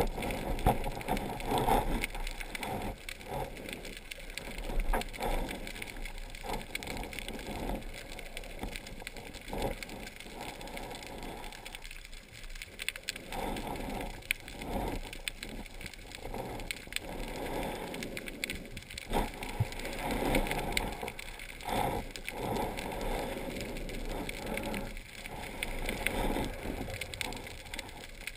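Underwater ambience heard through a diving camera's housing: a constant fine crackle with irregular soft knocks and rustles.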